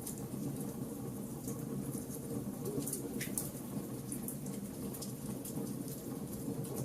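Wood fire in a fireplace crackling, with frequent short pops over a steady low rumble; one slightly longer pop about three seconds in.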